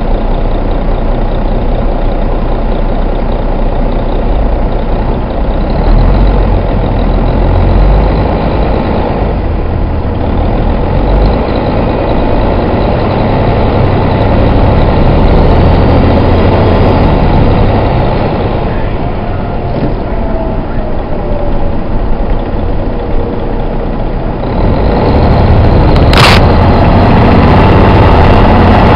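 Detroit Diesel Series 60 12.7-litre diesel in a Van Hool coach running under way, heard from inside the coach, its rumble rising and falling with load and getting louder about 25 seconds in. A single sharp click about 26 seconds in.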